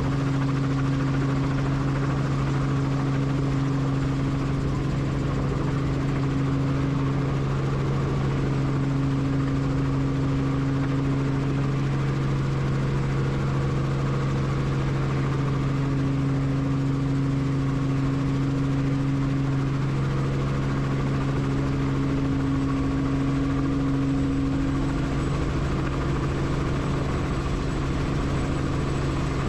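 Helicopter engine and rotor running steadily, a constant low drone with a steady hum.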